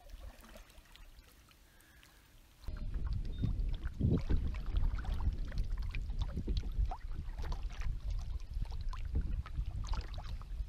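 A canoe being paddled on choppy lake water, heard from a camera mounted on the canoe. About three seconds in, after a very quiet start, water begins splashing and knocking against the hull over a steady low rumble.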